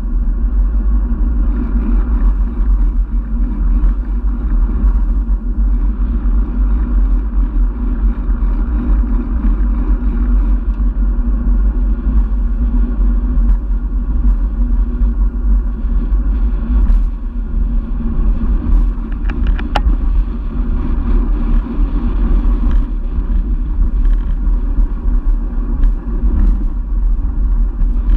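Wind rushing over the microphone of a bike-mounted camera on a moving road bike, with tyres running on asphalt: a steady low rumble.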